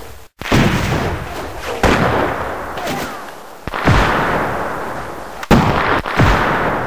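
Battle sound effects of artillery fire: about five heavy booms a second or so apart, each followed by a long fading rumble.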